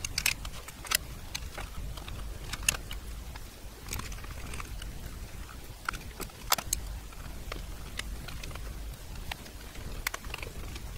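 Irregular small metallic clicks and taps of a screwdriver and screws as the HP9845B tape drive mechanism is screwed into its metal chassis.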